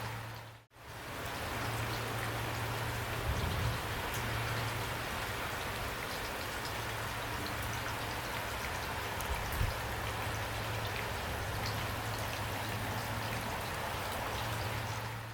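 Heavy rain falling steadily, with scattered drop ticks over a low steady hum and two soft low thumps. The sound cuts out briefly under a second in, then comes back.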